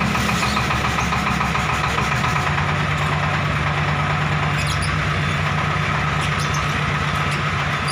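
Diesel engine of a homemade ledok dump truck idling steadily.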